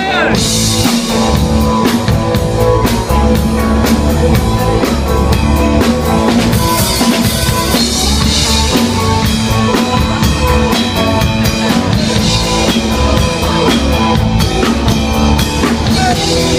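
Live rock band playing: a drum kit beating steadily under amplified electric guitars, with no singing.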